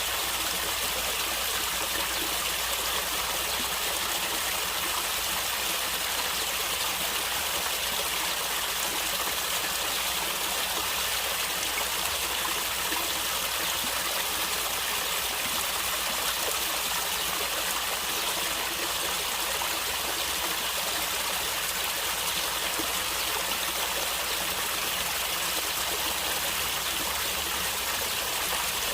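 Stream water running and gurgling in a steady, even rush.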